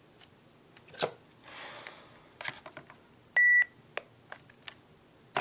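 Clicks and knocks from a Levana baby monitor's handheld parent unit being picked up and handled. About three and a half seconds in, the unit gives a single short, high beep.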